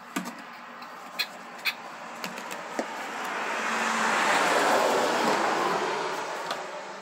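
A car passing by on a nearby road: a broad road noise that swells up to a peak midway and then fades away. A few sharp clicks sound in the first two seconds.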